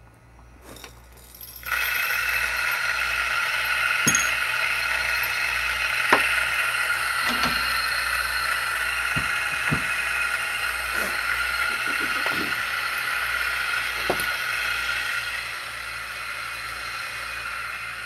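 P64 coffee grinder with 64 mm SSP high-uniformity burrs grinding espresso beans. The motor runs at a steady pitch with scattered sharp clicks and crackles. It starts about two seconds in and is a little quieter for the last few seconds.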